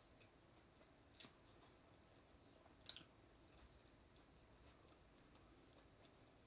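Near silence with faint mouth-closed chewing of a crispy fried chicken sandwich, with two soft crunches: one about a second in, one near three seconds.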